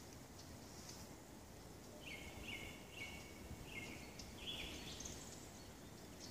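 Faint woodland birdsong: a songbird sings four short, similar phrases in quick succession starting about two seconds in, with scattered thin high chirps from other birds. Low, steady outdoor noise lies underneath.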